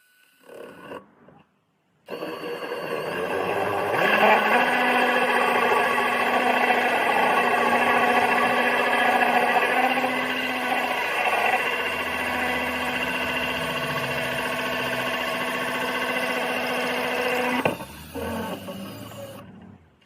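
Electric drill running steadily while driving a hole saw into wood. It starts abruptly about two seconds in and stops near the end, with brief handling knocks before and after.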